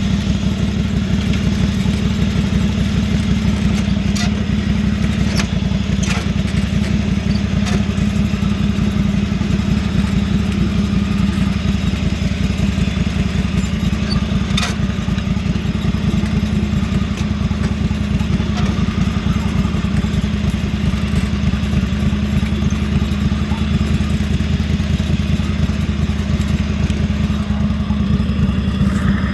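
Lawnmower engine running steadily through an exhaust pipe taken off a truck, with a few light clicks over it.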